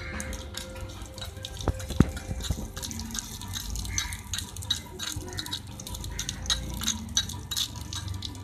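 Chopped onion and garlic frying in oil in a tiny clay pot, a fast irregular crackle, while a small metal spoon stirs them, clicking against the clay now and then.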